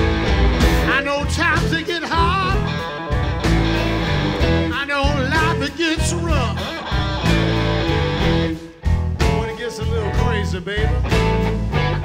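Live blues-rock band playing: an electric guitar lead with bent, wavering notes over bass and drums.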